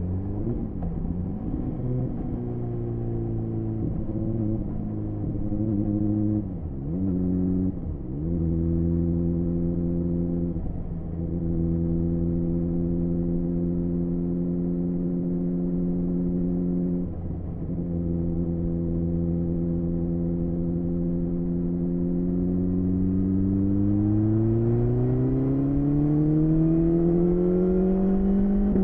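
BMW S1000RR's inline-four engine through an Akrapovic Shorty exhaust, heard from the rider's seat. Over the first several seconds the revs rise and fall with a few quick gear changes, then the engine holds a steady cruise broken by two brief throttle lifts. Over the last third it accelerates with a steady rise in revs.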